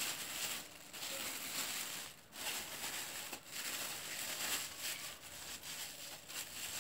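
Thin plastic fridge bag crinkling and rustling in irregular bursts with short pauses as it is pulled over a paraffin-coated hand and twisted shut to hold in the wax's heat.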